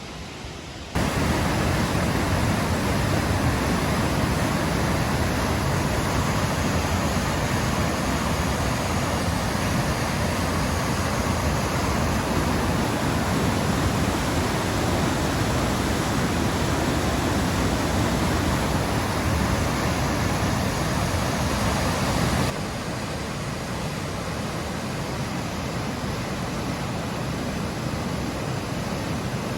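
Steady rushing of a waterfall and fast river water. It cuts in loud about a second in and drops to a quieter, more distant rush a little after two-thirds of the way through.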